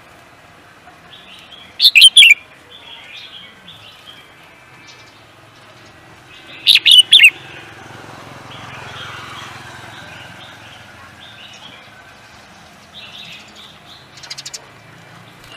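Songbird singing: two loud bursts of three or four rapid, high notes about two seconds in and about seven seconds in, with softer chirps and a quieter run of notes near the end.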